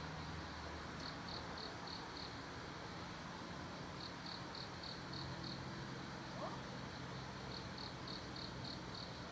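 An insect calling: short high-pitched chirps about three a second, in runs of five or six that repeat every few seconds, over a steady low hum.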